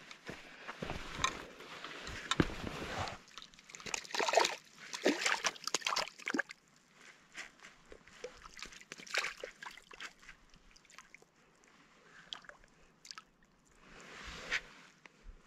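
Water sloshing and splashing in short bouts as a hand holds a caught fish in shallow lake water, with quieter drips and trickles between the bouts.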